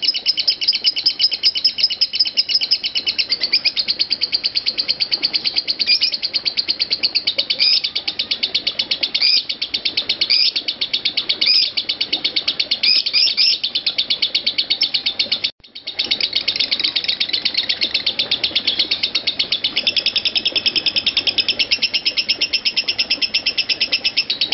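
Masked lovebird chattering in one long, unbroken stream of rapid high chirps: the extended 'konslet' ngekek that breeders prize. The sound cuts out for a moment about fifteen seconds in, then the chatter carries on.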